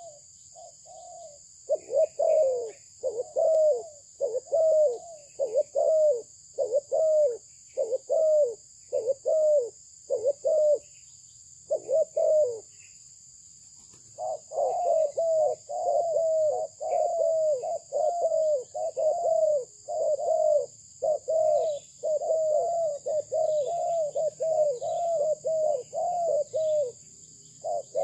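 Spotted dove (terkukur) cooing: a long run of short, low coos at about one to one and a half a second, breaking off for a couple of seconds near the middle and then resuming.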